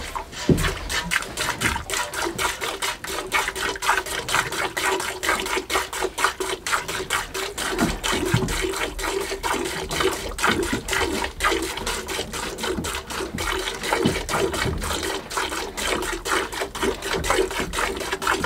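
Milk jets squirting into a metal pail as a cow is hand-milked, the alternating squirts coming in a quick, even rhythm of several a second.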